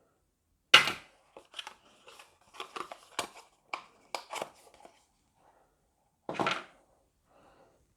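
Packaging and small accessories being handled: plastic crinkling, with a sharp knock about a second in, a run of crackles and taps, and another short burst of crinkling near the end.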